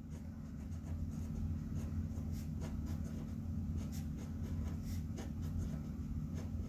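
Felt-tip marker writing on paper: short, irregular scratchy strokes, over a steady low hum.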